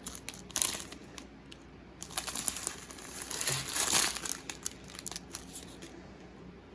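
Small plastic bags of diamond-painting drills crinkling and rustling as they are handled, in irregular bursts with small clicks, loudest about four seconds in and quieter near the end.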